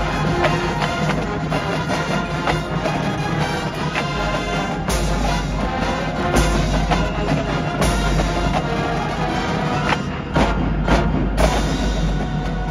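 High school marching band playing its competition show: winds over drums and a front ensemble of marimbas and timpani. Several heavy accented ensemble hits land from about five seconds in.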